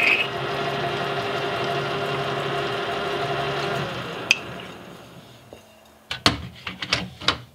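Metal lathe running steadily with a gear whine. A sharp click about four seconds in, after which the machine winds down and dies away. Near the end come a few sharp metallic clanks and clicks.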